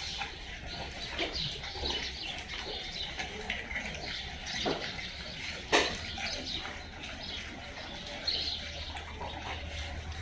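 Small birds chirping in short, scattered calls over a low hum, with one sharp click a little past halfway.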